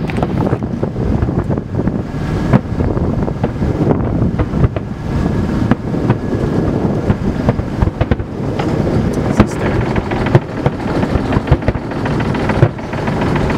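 Aerial firework shells bursting in quick succession over water, a dense run of bangs and crackles on top of a steady low rumble.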